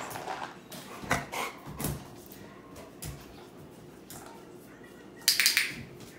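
A dog moving about on a tile floor and working scent tins held in a person's hands, with several soft knocks in the first two seconds. A short, loud rushing burst comes about five seconds in.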